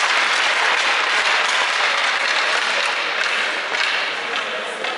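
Crowd applauding with dense, steady clapping that eases off slightly near the end.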